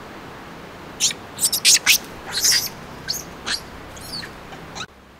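A bird chirping: a quick run of short, sharp, high notes, a few of them sliding in pitch, over a steady outdoor hiss that drops away suddenly near the end.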